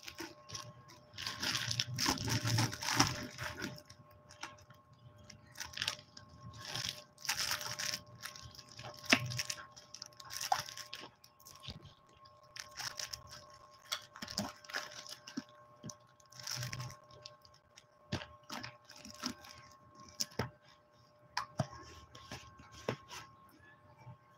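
Plastic-wrapped candies crinkling and rattling as they are handled, dropped into a clear jar and shaken, in irregular bursts of rustling with sharp little clicks.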